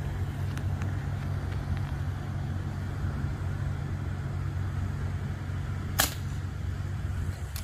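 A single sharp crack from a .22 Brocock Atomic XR PCP air rifle firing, about six seconds in, over a steady low rumble.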